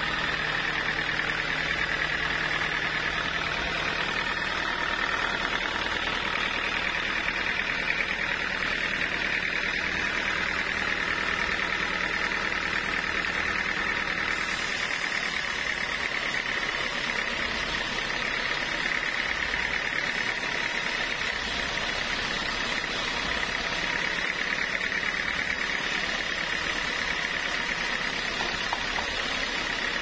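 Band sawmill ripping a large teak log lengthwise into a slab: a steady high-pitched sawing noise from the blade in the wood over the running machine, growing hissier about halfway through.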